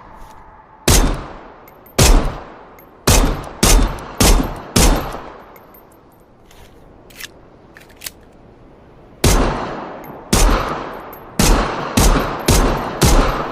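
Glock 17 Gen 4 9mm pistol firing single shots, each with a decaying tail: six shots over the first five seconds, some in quick succession. After a pause of about four seconds with two faint clicks, six more shots follow, coming faster toward the end.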